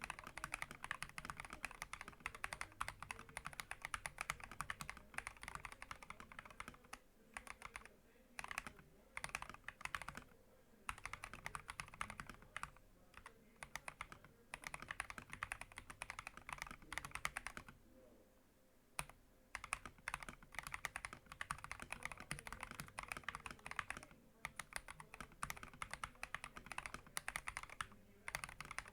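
Fast typing on a mechanical keyboard with Akko Rose Red linear switches and PBT XDA keycaps: a dense run of keystroke clacks, broken by brief pauses three or four times.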